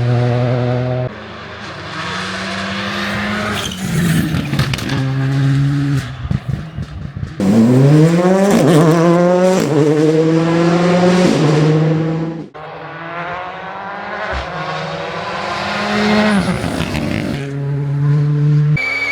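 WRC rally car engines (1.6-litre turbocharged four-cylinders) held at steady revs, then accelerating hard with the pitch climbing in steps at each upshift. A second run of revving rises and falls, then settles steady near the end.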